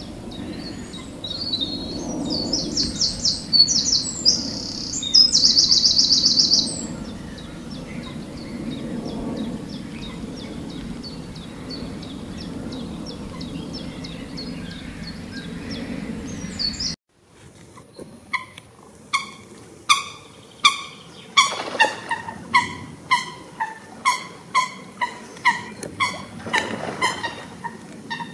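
Birds calling. First, a loud, high, rapid song of chirping notes runs for about five seconds over a low steady background noise. After an abrupt cut, a bird repeats a short clear call a little more than once a second, lower in pitch.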